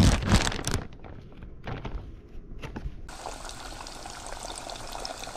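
A plastic bag rustling loudly as fish fillets are shaken in breading, then a few knocks. From about three seconds in, the steady sizzle of fish deep-frying in a saucepan of hot oil.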